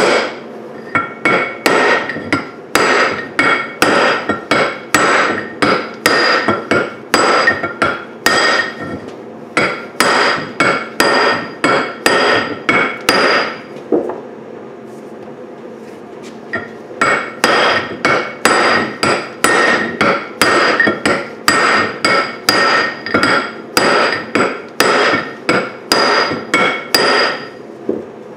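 Hammer striking a punch held against a cast-iron tractor flywheel: steady metal-on-metal blows about two a second, each ringing briefly. The hammering stops for a few seconds about halfway, then starts again.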